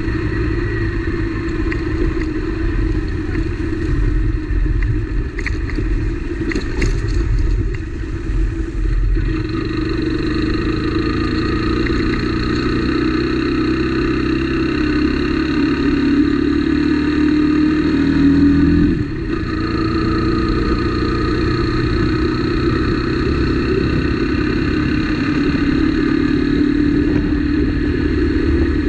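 Motorcycle engine running under way, heard from the rider's seat, with a rumble of road and wind underneath. Its pitch climbs steadily for several seconds and drops suddenly about two-thirds of the way through, then settles back to a steady run.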